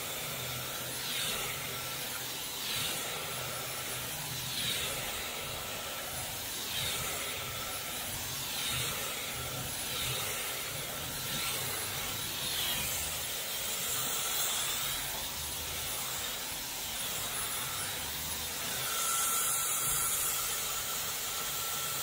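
Dyson Supersonic hair dryer blowing steadily with a thin high whine, its comb attachment drawn down through wet hair. The air swells and swishes about every two seconds with each stroke.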